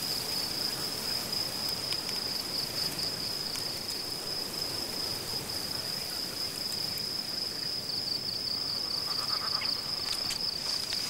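Steady high-pitched chirring of insects in the grass, one unbroken shrill tone with a slight pulsing, over a soft even background hiss.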